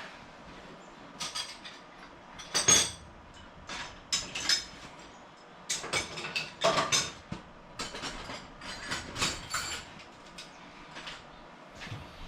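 Irregular metallic clinks and clanks of hand tools and small tractor parts being handled and knocked, with two louder knocks about three and seven seconds in.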